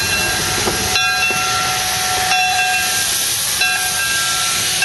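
An 1890 Porter 0-4-0 steam locomotive hissing steam steadily, with faint whistling tones in the hiss and a brief pulse about every second and a half.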